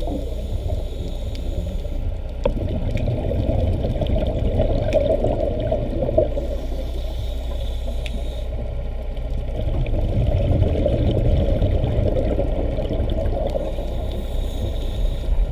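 Underwater ambience heard through a camera's waterproof housing: a steady, muffled rush of water with a few faint clicks.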